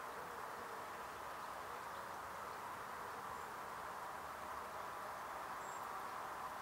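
Steady outdoor background hiss with no clear single source, and a couple of faint, short, high chirps about three and six seconds in.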